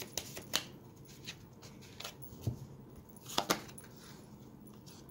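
Tarot cards being handled: a card drawn from the deck, flipped and laid down, giving a few short snaps and taps, the loudest two close together about three and a half seconds in.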